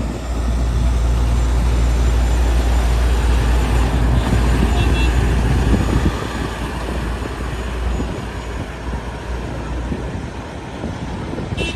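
A heavy vehicle's engine running with a deep, steady low note, louder for the first seven seconds or so and then easing off.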